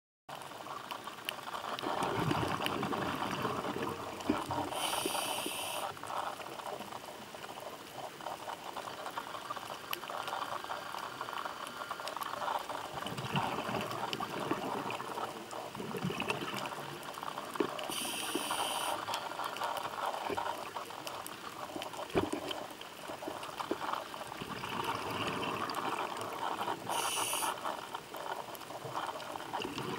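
Scuba diver breathing underwater through a regulator. There are three short hisses of inhalation, about 13 seconds apart, and swells of gurgling bubbles on the exhales in between.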